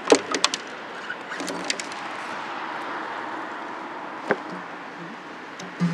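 A car passing by, with a few sharp clicks and knocks at the start and near the end.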